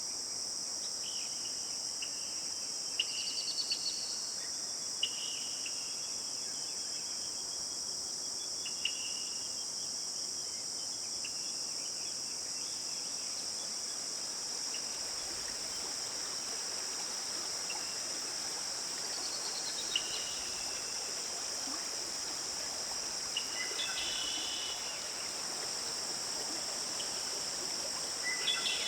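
A steady, high-pitched chorus of insects, like crickets, with scattered short bird calls and chirps over it, including a couple of quick descending trills and a cluster of calls near the end.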